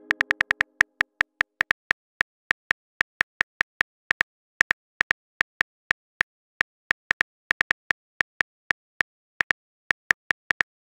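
Phone keyboard typing sounds: short, high clicks at about four a second, unevenly spaced, as a text message is typed out letter by letter.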